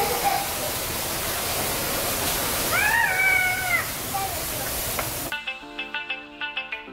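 Steady rush of a waterfall, with one high, drawn-out, arching call from a child about three seconds in. The water cuts off abruptly about five seconds in, and background music with plucked guitar takes over.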